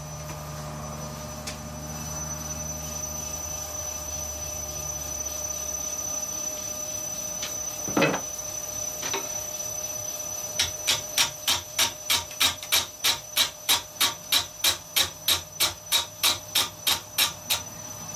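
Wood lathe running with a steady whine while a turning gouge cuts a large, out-of-round log: from about ten seconds in, the tool strikes the log's high spots once per revolution, an even rapid tapping about three times a second, the sign of an interrupted cut while roughing the log round. A single knock comes a little before the cutting starts.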